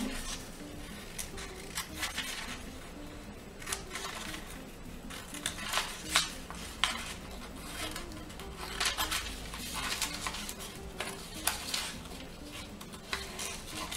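Small scissors snipping through envelope paper as a shape is cut out: short, irregular snips with pauses between, along with the rustle of the paper being turned.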